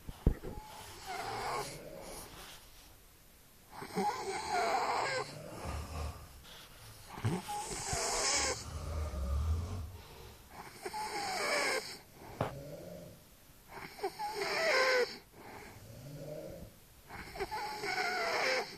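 Heavy snoring: about six long, loud snores roughly three to four seconds apart, with quieter breathing between them.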